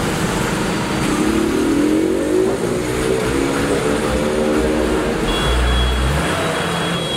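A motor vehicle engine running nearby and revving, its pitch rising and falling, over a steady bed of street noise.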